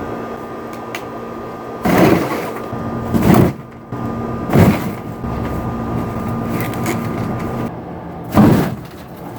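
Cardboard boxes being broken down and tossed into a dumpster: four loud, short crunching thumps, the last a few seconds after the others, over a steady mechanical hum.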